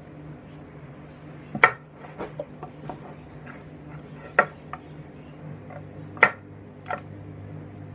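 A few sharp clinks and taps of hands and stuffing against a large metal tray as the mixture is scooped out: four louder ones about one and a half, four and a half, six and seven seconds in, with lighter taps between. A steady low hum runs underneath.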